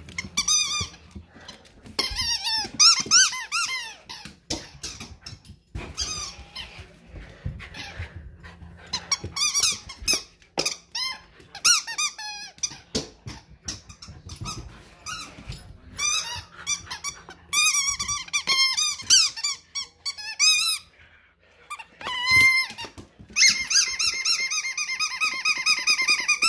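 Yellow rubber squeaky dog toy squeaked over and over during play with a Labrador puppy, short squeaks bending up and down in pitch, then one long drawn-out squeak near the end. Light knocks and scuffles come between the squeaks.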